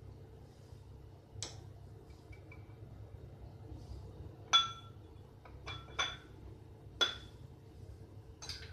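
Glass bowls and a spoon clinking together: about six sharp clinks, each with a brief ring, spread out with pauses, the first about a second and a half in.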